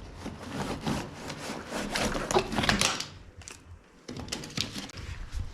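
Clicks, taps and rustling of hands handling wire and small electrical parts, busiest in the middle, with a short lull about four seconds in.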